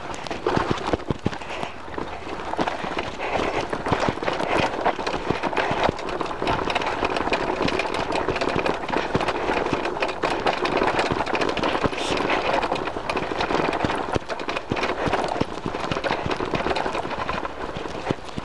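Mountain bike jolting over a rough grass-and-dirt trail, heard from a handlebar-mounted camera: a steady clatter of many quick knocks and rattles from the bike and mount over the bumps, under a constant rushing noise.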